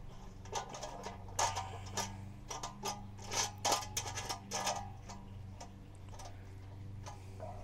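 Small metal parts clicking and scraping as a hook and nut are fitted to a bolt on a Weber kettle grill's enamelled steel lid: a run of irregular ticks over the first five seconds or so, then quieter, over a low steady hum.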